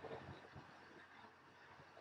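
Washing machine in a wash cycle, heard faintly: the tail end of a slosh of water and clothes in the drum right at the start, then a quiet lull between strokes.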